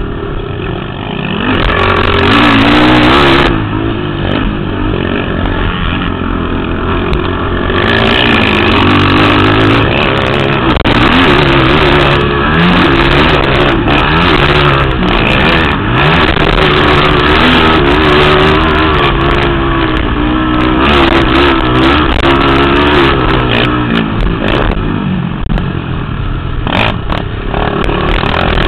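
Racing ATV (quad) engines revving hard, the pitch climbing and dropping again and again as they accelerate and shift through the gears.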